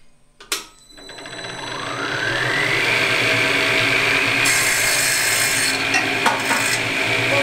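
Printer's saw, a precision sliding-table saw built for cutting lead printing blocks, switched on with a click about half a second in; its motor and blade spin up with a rising whine over the next two seconds, then run steadily. Around the middle the blade cuts through a small block of wood for about a second.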